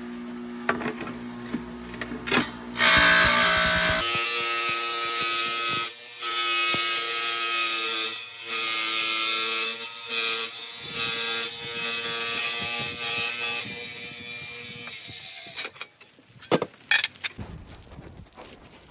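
Wet tile saw's diamond blade cutting a porcelain floor tile: a loud whining cut that starts sharply about three seconds in, dips briefly a few times, and ends a few seconds before the end. A few sharp knocks follow.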